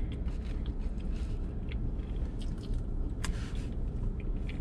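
A person chewing food, with scattered small clicks and scrapes of a utensil against a food container and one sharper click about three seconds in, over a steady low rumble inside a vehicle cab.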